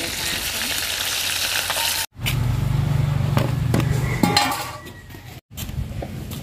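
Chicken pieces sizzling as they fry in hot oil in a wok, a dense hiss for about two seconds. After an abrupt cut it gives way to a low rumble with a few sharp knocks.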